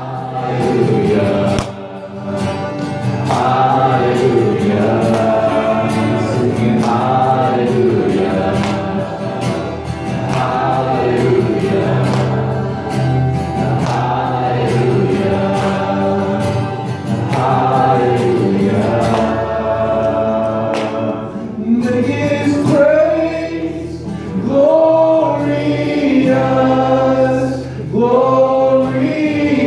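Live worship music: voices singing a slow Christian worship song, accompanied by acoustic guitar and keyboard.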